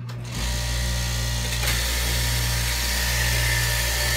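Electric straight-knife cloth cutting machine running steadily with a loud buzz as its upright reciprocating blade cuts through layered fabric. It gets louder about a third of a second in.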